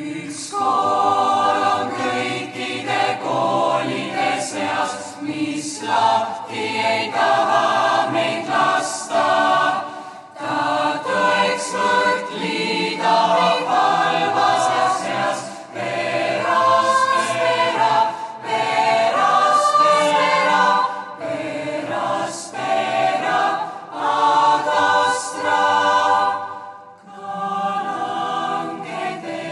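Large mixed choir of girls and boys singing a choral song in many voices, in long phrases with short breaks between them.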